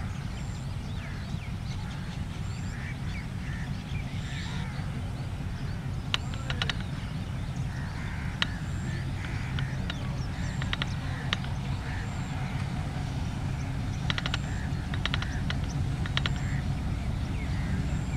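2200 hp ALCO diesel-electric locomotive PHA-20 running with a steady low rumble that grows slightly louder as it pulls the shuttle train slowly toward the camera. Scattered bird calls and a few clusters of sharp clicks are heard over it.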